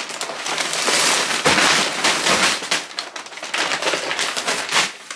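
Large brown paper bag crinkling and rustling loudly as it is lifted and handled, a dense run of crackles with a few louder crunches.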